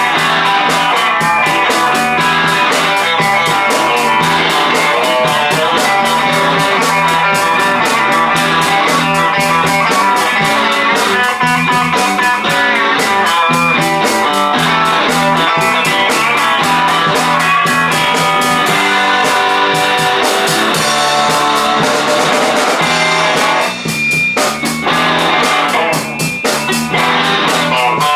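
A rock band playing an anime song live, led by guitar, with a couple of brief breaks in the playing near the end.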